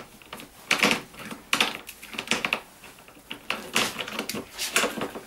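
A Rubi tile breaker being picked up and fitted onto the edge of a scored large-format porcelain slab: a string of irregular sharp clicks and clacks of the tool against the tile.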